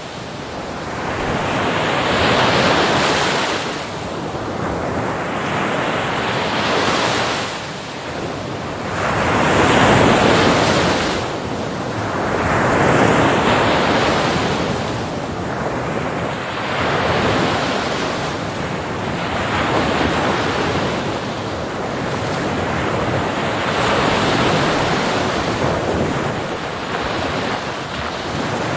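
Ocean surf breaking on a beach in repeated swells of rushing water, each wave rising and falling every few seconds, with wind buffeting the microphone.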